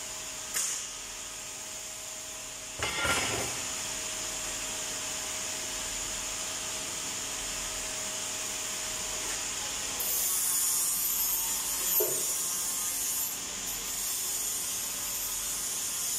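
Steady workshop background noise: a machinery hum with a constant hiss. It is broken by a short noisy burst about three seconds in, a louder hiss from about ten to thirteen seconds, and a sharp click about twelve seconds in.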